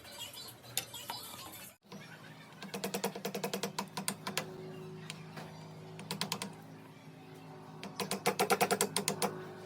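Bursts of rapid sharp tapping, roughly eight to ten clicks a second, over background music with steady held low tones.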